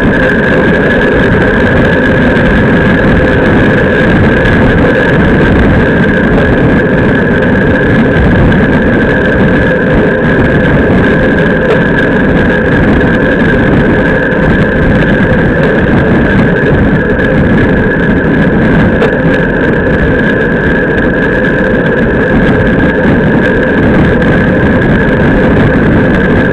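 Steady, loud wind and road noise rushing over an action camera mounted low on a road racing bicycle riding at speed, with a steady high whine over it.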